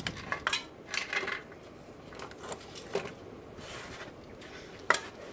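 Scattered light metallic clinks and knocks of tools and objects being handled under a car: a quick cluster in the first second or so, one more about three seconds in, and a sharper, louder clink near the end.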